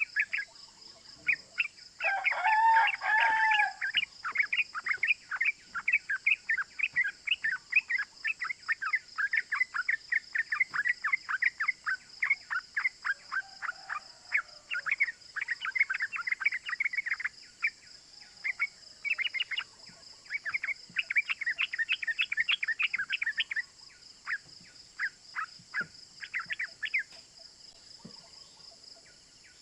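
Yellow-vented bulbul (trucukan) singing a fast, rolling series of short 'cuk cuk' chirps, with brief pauses. A rooster crows once, loudly, about two seconds in, over a steady high insect drone.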